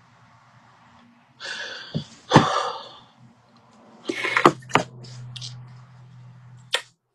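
A man crying without words: several sharp, noisy sniffs and gasping breaths, the loudest about two and a half seconds in and again around four and a half seconds in.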